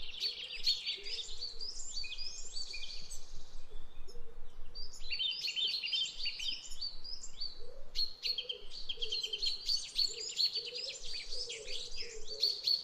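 Birds chirping in rapid, overlapping calls and trills, coming in spells with a brief lull about four seconds in.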